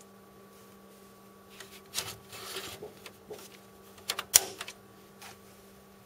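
An empty 3.5-inch hot-swap drive tray being slid back into its bay in a Supermicro tower server chassis, with a sliding rustle about two seconds in and sharp clicks about four seconds in as the tray handle latches shut. Under it, the steady hum of the running server's fans.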